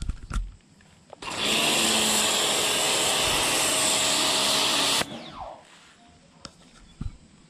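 Bosch Aquatak 125 electric pressure washer running and spraying through a snow-foam lance: a loud, steady hiss with the motor's hum underneath, starting a little over a second in and cutting off abruptly about five seconds in.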